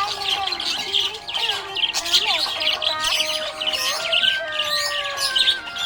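A flock of budgerigars chirping and warbling in a dense, rapid, continuous chatter, over background music with long held notes.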